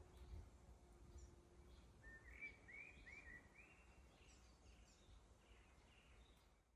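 Faint woodland birdsong: about two seconds in, a bird sings a short phrase of around five rising-and-falling notes, with scattered faint chirps from other birds and a low rumble underneath.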